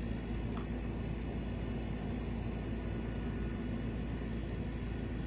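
Steady low hum with hiss, an even machine-like drone that does not change.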